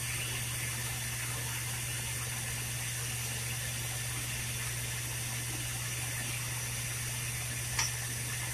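Lampworking bench torch burning with a steady hiss, over a constant low hum. A short sharp click sounds near the end.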